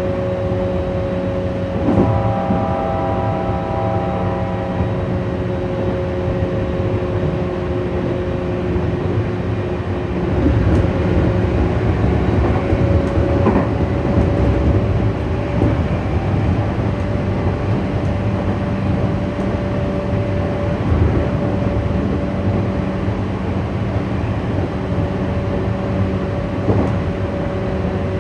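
Tokyu 8500 series electric train running along the line, heard from inside the leading car: steady rumble of wheels on rail with a constant electrical hum from the running gear, and occasional knocks. About two seconds in, a held chord of tones sounds for about three seconds.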